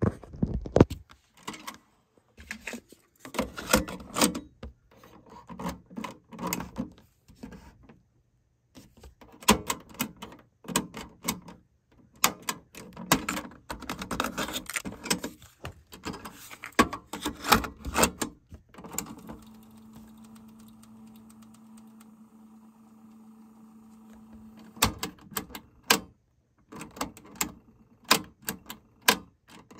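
Aiwa AD-WX333 dual cassette deck being handled: plastic clacks and rattles of the cassette doors, cassettes going in and out, and transport keys clicking. Past the middle, the deck's tape mechanism hums steadily for about six seconds, then the clicking and clunking resumes.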